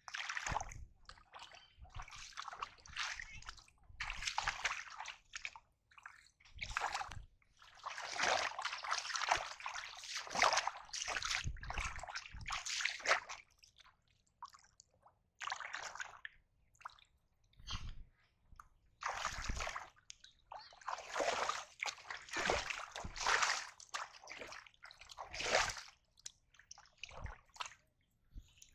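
Shallow muddy water splashing and sloshing as wading legs stir it. The sound comes in irregular bursts, from under a second to several seconds long, with short pauses between.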